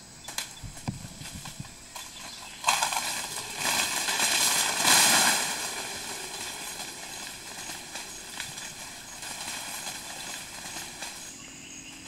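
Rainforest ambience of insects droning steadily in many high tones, with a few light clicks in the first couple of seconds. A louder hiss swells in suddenly about three seconds in and slowly fades.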